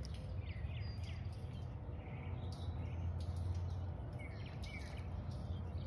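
Birds chirping now and then, short falling calls, over a steady low rumble, with a few faint scattered ticks.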